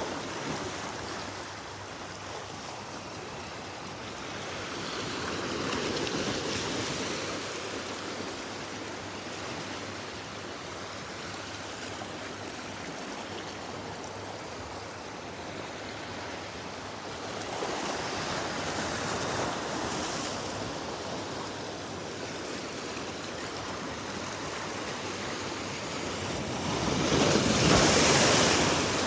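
Waves washing in, a steady rush of water that swells three times, the last and loudest near the end.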